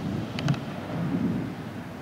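Thunder rumbling low, swelling about half a second in and fading again, with two sharp clicks at its loudest point.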